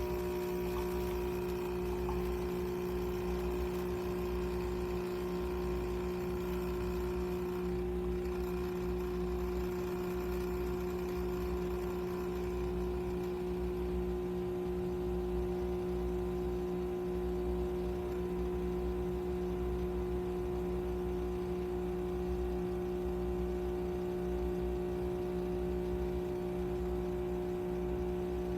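The URintells 20-bar espresso machine's pump runs steadily as it brews a long coffee, a constant buzzing hum that cuts off abruptly at the very end.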